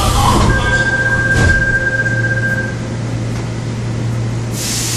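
Interior noise of a Korail class 351000 electric multiple unit, heard inside the passenger car: a steady low hum, with a thin steady high tone for about two seconds early on and a single click about a second and a half in. Near the end a louder hiss comes in suddenly over the hum.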